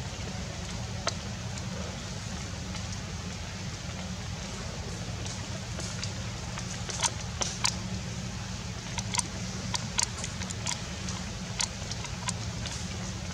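Steady outdoor hiss over a low rumble, with water dripping after rain: a scattering of sharp ticks, most of them in the second half.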